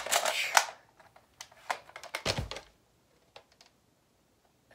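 Scattered light clicks and knocks of toys being handled, with one heavier thump about two seconds in.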